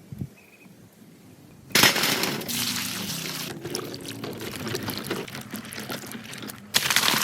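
Water pouring, starting suddenly about two seconds in, with a brief break and a second pour near the end.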